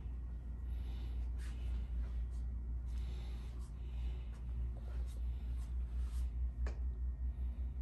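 Quiet small-room background with a steady low rumble, and soft breaths recurring close to a handheld phone's microphone, with a few faint clicks.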